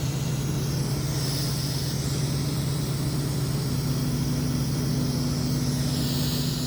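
Refrigerant gas hissing steadily out of the service-port adapter as the mini split's line set is purged of air and non-condensable gases. A steady low machinery hum, like an engine running, sits under it and is the loudest sound.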